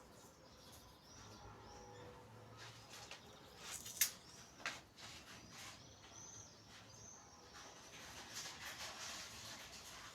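Quiet handling noises with two sharp clicks about four seconds in, over faint high bird chirps.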